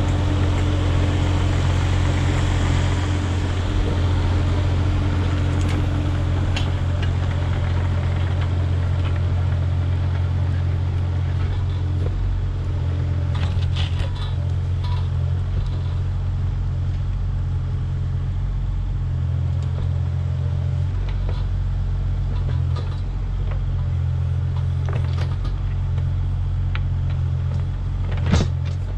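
Kubota KX040-4 mini excavator's diesel engine running steadily as the machine tracks across loose dirt and digs with its bucket, with scattered metallic knocks and one sharp, loud knock near the end.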